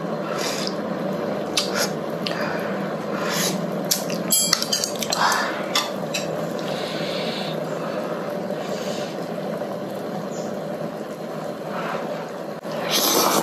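Close-miked eating sounds: chewing and wet mouth sounds, with a few light clicks of chopsticks and spoon, over a steady low background noise.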